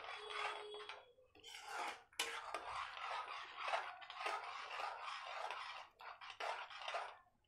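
Metal spoon stirring thick tomato gravy in a metal kadhai, scraping against the pan in repeated uneven strokes with short pauses about one and two seconds in.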